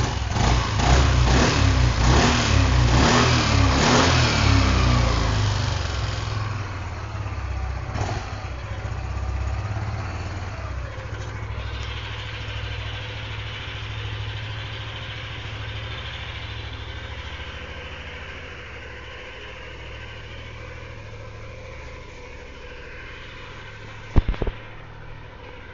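Yamaha NMAX scooter's single-cylinder engine revved several times, pitch rising and falling, over the first few seconds, then settling into a steady idle. A couple of sharp knocks near the end.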